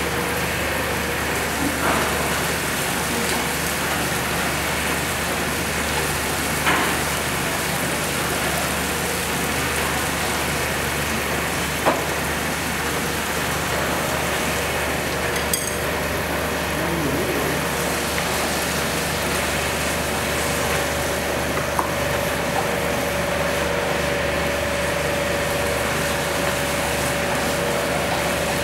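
Rice vermicelli noodles sizzling as they fry in a pan over a gas burner, a steady sizzle with a few sharp clicks, likely from the spatula against the pan.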